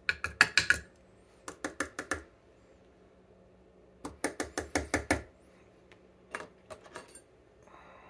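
Runs of sharp, rapid clicks and taps from a dimple lock cylinder and small hand tools being handled while the lock is taken apart: three quick bursts of several clicks each, then a few fainter ticks near the end.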